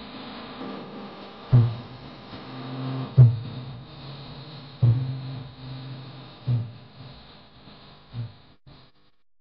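Music from a Pashto ghazal: a deep drum struck about every second and a half, each stroke ringing on with a low hum over a faint steady background. It dies away shortly before the end.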